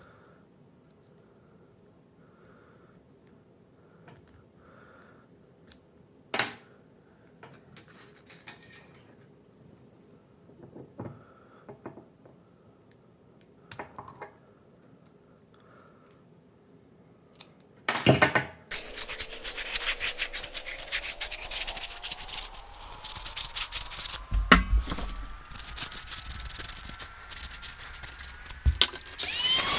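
Faint metallic clicks, scrapes and rubbing of a padlock being picked by hand. About two-thirds of the way in, a much louder hissing noise starts, with a tone rising slowly in pitch through it.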